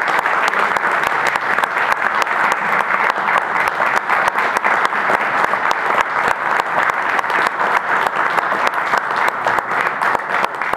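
Audience applauding, a dense, steady round of clapping from a hall full of people.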